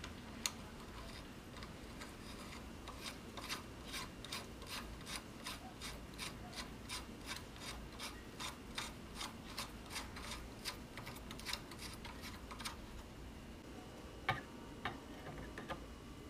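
Rhythmic abrasive rubbing strokes by hand on car-body metal, about two to three strokes a second, stopping about 13 seconds in. A few light clicks follow near the end.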